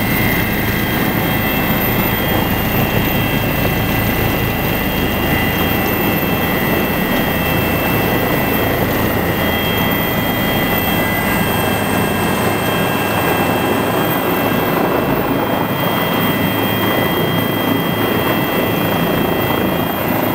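Bell 407 helicopter heard from inside the cabin as it lands: its turbine and rotor run loud and steady, with several high whining tones over the rotor noise. The lowest rumble thins out in the second half as it comes down onto the pad.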